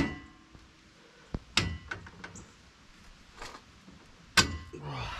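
Metal clanks as hardware and a tool knock against a King off-road shock and its lower mount while the shock is bolted onto a Jeep Gladiator. About five sharp knocks, some with a brief ring; the loudest come at the very start and about four seconds in.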